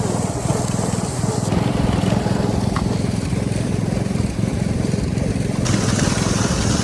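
Steady engine and travel noise from a moving vehicle, a dense low rumble that holds level.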